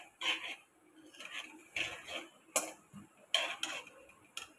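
Metal spoon scraping and clinking against a steel kadai while stirring sliced onions frying on high flame: about eight irregular clinks and scrapes.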